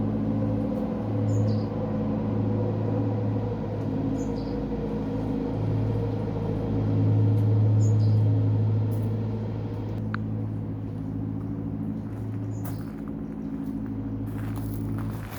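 A steady low machine hum with overtones, swelling and fading in level. A short high double chirp repeats about every three seconds over it, and a few sharp clicks come near the end.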